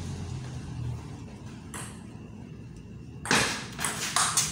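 Table tennis ball striking the paddles and the table in a quick run of sharp clicks as a rally begins, about three seconds in.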